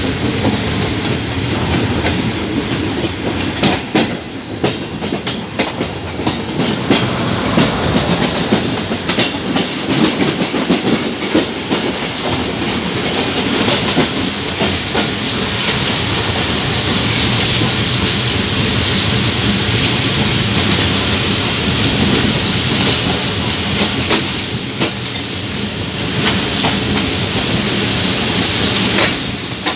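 Pakistan Railways passenger train running at speed, heard from inside a coach: a steady rumble and rush of track noise, with the wheels clicking irregularly over rail joints.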